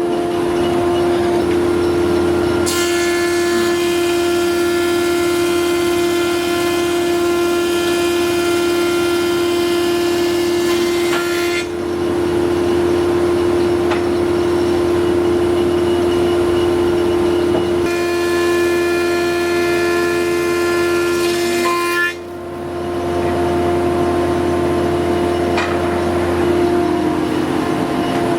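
Thickness planer running with a steady whine while two boards are fed through it in turn for the final bevel cut, each pass adding a louder, higher cutting sound from the knives, the first about nine seconds long and the second about four. Near the end the machine's pitch begins to drop.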